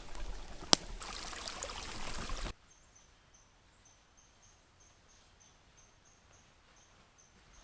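Rushing river water with a sharp click about a second in, which cuts off abruptly after a couple of seconds. Then a quiet background with a steady run of short high-pitched chirps, about three a second.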